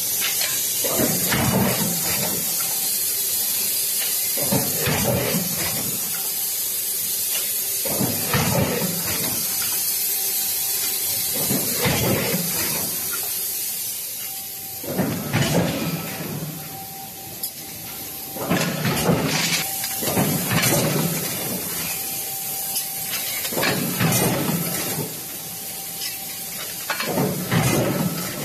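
Automatic hot-forging press line running: a constant high hiss, with a heavier surge of noise from the press cycle every two to three seconds. A faint steady tone comes and goes.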